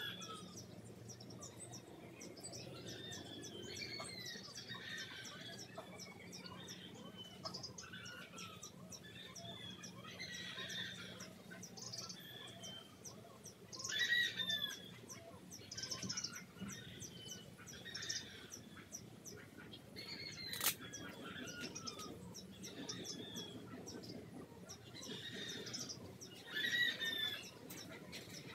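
Birds chirping repeatedly in short, falling calls every second or two, over a faint steady low hum, with one sharp click about three-quarters of the way through.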